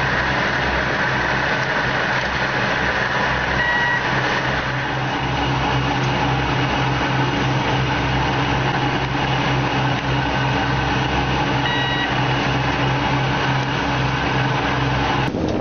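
Fishing boat's engine and deck machinery running with a steady low drone, with two short beeps about four and twelve seconds in.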